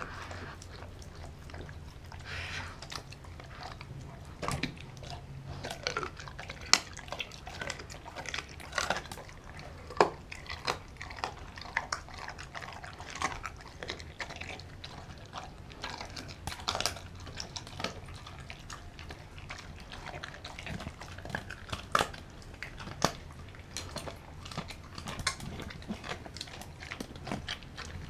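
Doberman chewing raw chicken and organ meat from a bowl: wet chewing with irregular sharp crunches and clicks, the loudest about seven and ten seconds in.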